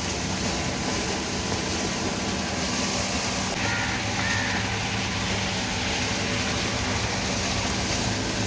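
Steady low mechanical drone, like an engine or motor running without change, with a few faint high chirps about halfway through.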